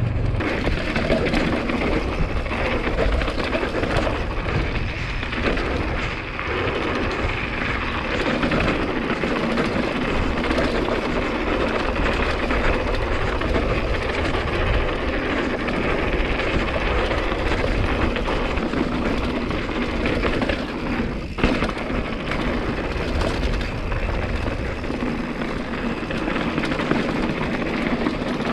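Mountain bike rattling steadily over a rough, rocky dirt road, tyres and frame clattering without a break, with one sharper knock about three quarters of the way through.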